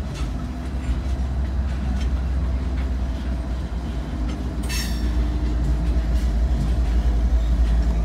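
CSX GE diesel-electric locomotives passing close by, a steady deep engine rumble with the clatter of wheels on rail, heard from inside a car. A brief high squeal about halfway through.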